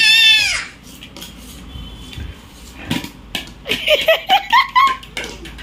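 A toddler's high cry breaks off in the first half second. Then a plastic toy clatters and knocks on a hard floor, and about four seconds in the child lets out a string of short, rising whining sounds.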